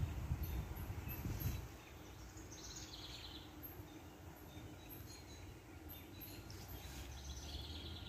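Faint bird chirps over steady outdoor background noise, with a low rumble in the first second and a half.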